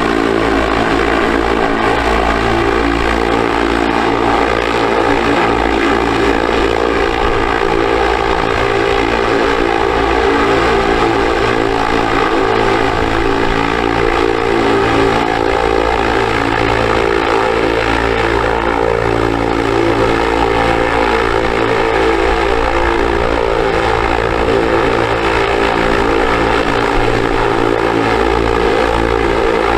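Small electric motor spinning a propeller, running at a steady speed with a constant buzzing whine.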